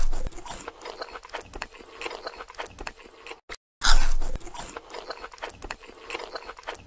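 A person biting into crunchy food and chewing. A loud crunching bite comes at the start and another about four seconds in, each followed by many small crunches as it is chewed.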